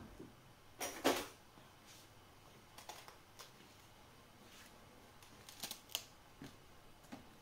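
Endive leaves being pulled off and handled: two crisp rustling snaps about a second in, then scattered light clicks and rustles.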